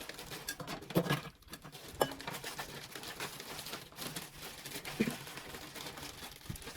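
Hands rummaging through small objects, a continuous rustling and clicking with sharper knocks about one, two and five seconds in.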